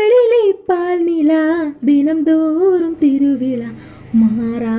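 A woman singing a Tamil song solo, in held, ornamented phrases with short breaths between them.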